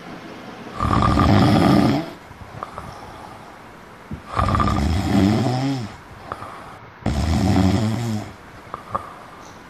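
A person snoring loudly, three long snores about three seconds apart.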